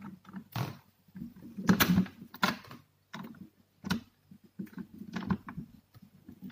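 Plastic rear housing of a TTLock smart door lock clicking and knocking against the door's metal mounting plate and spindle as it is pushed into place, a string of irregular taps with light rubbing between them.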